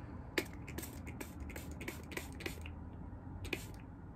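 Hand pump spray bottle of hydrogen peroxide spritzing onto the cut base of an orchid to disinfect it: a quick run of short hissing sprays, then one more near the end.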